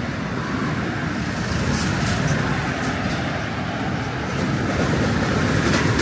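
Steady road-traffic noise: cars and trucks passing on a busy road, a continuous rumble of engines and tyres that grows a little louder in the second half.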